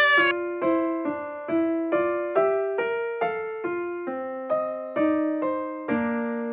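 Background piano music: a keyboard melody of evenly spaced single notes, about two a second, each struck and fading.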